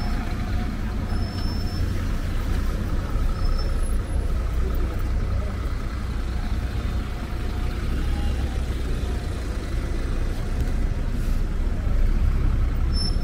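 A city bus's diesel engine running close by, a steady low drone, over the continuous noise of street traffic.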